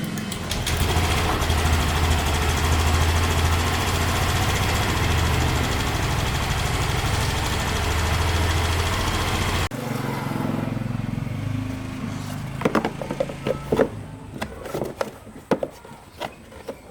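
A vehicle's engine running steadily, which stops abruptly about ten seconds in. A quieter stretch follows, then a series of sharp knocks and clicks.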